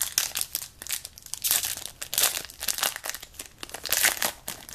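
Yu-Gi-Oh! booster pack wrapper being handled and torn open: many quick, irregular crinkles and crackles of the wrapper.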